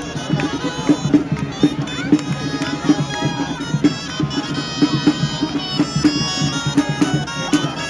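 Gralles (Catalan shawms) playing a shrill, reedy traditional tune over a steady drum beat.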